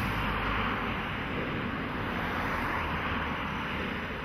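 British Airways Airbus A380's four Rolls-Royce Trent 900 turbofans running steadily as the airliner passes low with its landing gear down, a broad jet rush that fades slightly toward the end.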